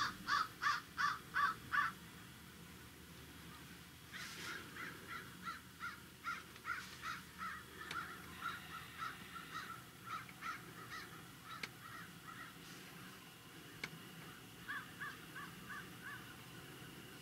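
Birds calling in runs of quick repeated notes: a loud run of about seven calls at the start, a longer, fainter run from about four seconds in, and a short run of five near the end.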